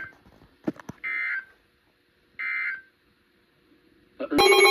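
NOAA Weather Radio end-of-message data bursts: short, raspy digital tone bursts about 1.3 seconds apart, the signal that the warning broadcast has ended. Near the end a much louder alert sound starts, several steady tones at once.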